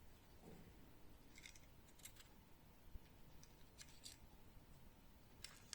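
Faint, scattered light clicks of small pistol parts being handled while a Glock 44 slide is taken apart, over near silence.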